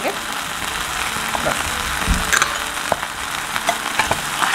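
Spicy sauce with garlic, curry leaves and green chillies sizzling in oil in a stainless steel pan as a steel spoon stirs it, with scattered light clicks of the spoon on the pan and one dull knock about two seconds in.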